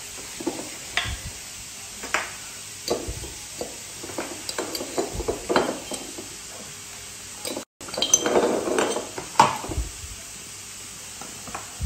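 Hands rubbing a spice mix into a raw rack of meat ribs on a metal tray: irregular wet slaps and rubbing strokes, with light knocks against the tray.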